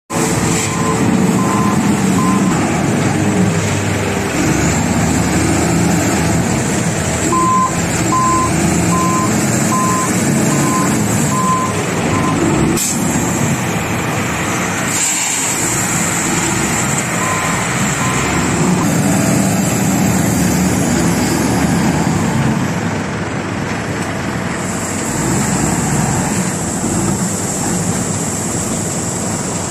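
SANY SYL956H5 wheel loader's diesel engine running and revving as the loader works, with a reversing alarm sounding in spells of steady beeps, about one and a half a second. A single sharp knock stands out about 13 seconds in.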